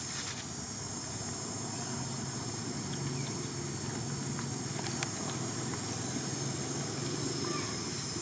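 Steady outdoor background: a low motor-like rumble that grows a little louder toward the end, under a steady high-pitched drone, with a few faint ticks and short chirps.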